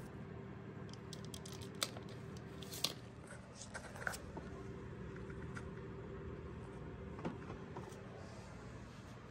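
Faint clicks and rustles of an engine-bay wiring harness and its plastic loom being handled, a few sharp ticks spread through, over a steady low hum.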